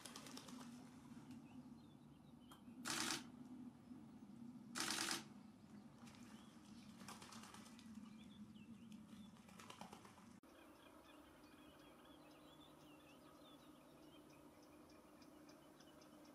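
Faint bird calls and song, quiet and scattered, with two brief bursts of rushing noise about three and five seconds in.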